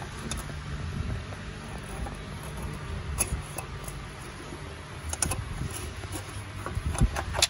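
Rustling handling noise with a few light clicks and taps, about three seconds in, around five seconds and near the end, as parts are worked by hand.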